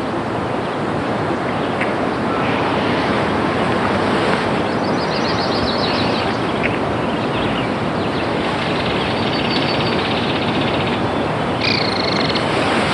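Steady rushing outdoor noise with birds chirping over it: a few quick chirps about five seconds in, a rapid trill from about nine to eleven seconds, and a short call near the end.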